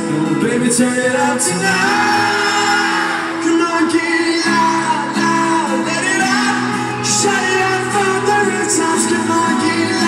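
Live pop-rock band playing, with a male lead singer singing into the microphone over acoustic guitar and drums, with crowd shouts mixed in, recorded from within the audience in a large hall.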